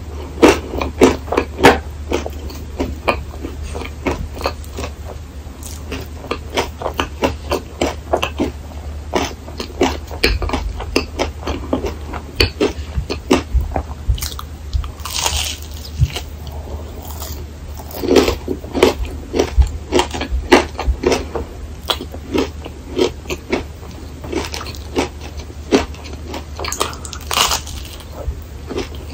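Close-miked biting and chewing of a crisp rice waffle filled with whipped cream, a steady run of small crunches with louder bursts of crunching about halfway through and again near the end.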